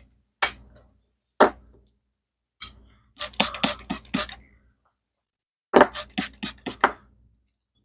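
Sharp knocks or clicks from hand work on engine parts: three single knocks about a second apart, then two quick runs of about six each.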